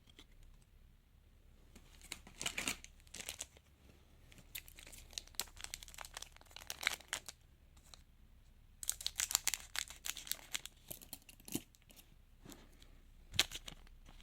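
A trading-card packet being torn open and its wrapper crinkled, in several short rustling bursts, with a sharp click near the end.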